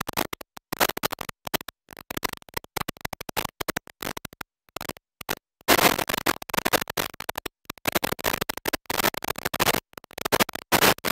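Background music with rapid turntable-style scratching, chopped into quick stuttering bursts that cut in and out, louder and denser from about halfway through.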